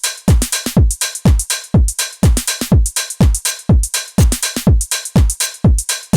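House drum groove from a Maschine step-sequenced pattern: a four-on-the-floor kick drum, each thump dropping in pitch, about two a second, with hi-hats and other percussion hits between the kicks.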